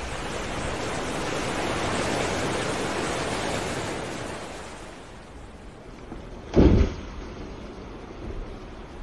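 Humpback whale crashing back into the sea after a breach: one short, heavy low boom about six and a half seconds in, the loudest thing here. Before it comes a steady rush of wind and open sea that swells and fades over the first few seconds.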